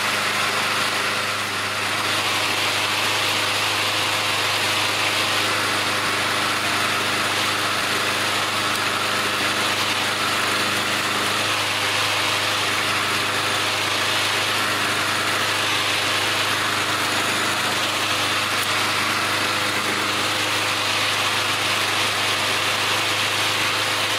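Briggs & Stratton flathead single-cylinder lawnmower engine running steadily at its governed speed, warmed up.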